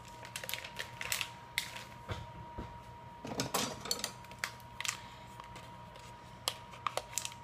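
Plastic food packaging crinkling and rustling in the hands as it is turned over and handled, with a scatter of small clicks. Near the end come a few sharp clicks of scissors closing on the bag's plastic edge.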